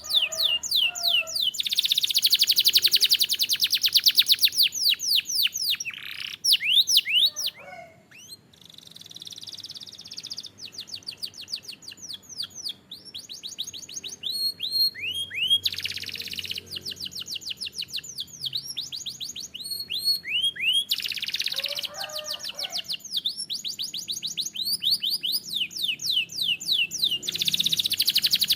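Canary singing a long song of rapid trills and rolls made of quickly repeated, falling whistled notes, some phrases so fast they blur into a buzz. The song breaks off briefly about eight seconds in, then resumes with further trill phrases.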